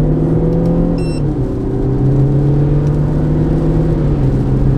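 Audi A6 3.0 TDI V6 diesel under full-throttle kickdown, heard from inside the cabin: the engine note climbs steadily in pitch, drops as the automatic gearbox upshifts about a second in, climbs again and drops with a second upshift about four seconds in. A short electronic beep sounds about a second in.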